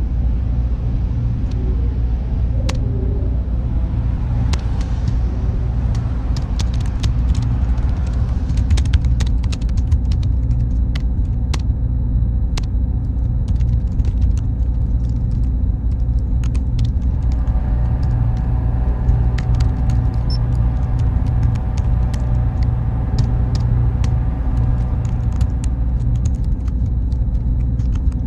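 Steady low drone of servers in a computer room, with computer keyboard typing in irregular runs of key clicks. A faint high whine stops about twelve seconds in, and a set of steady mid-pitched hums comes in about seventeen seconds in.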